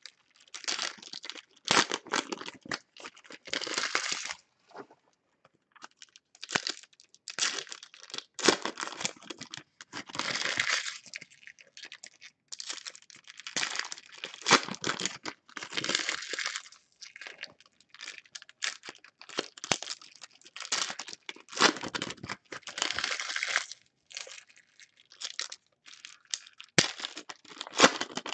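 Foil trading-card pack wrappers being torn open and crinkled by hand, in a string of short irregular rustling bursts with brief pauses between them.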